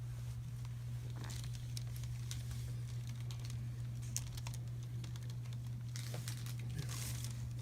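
Light rustling, crinkling and small clicks of hands massaging tight neck and shoulder muscles on a treatment table, over a steady low hum.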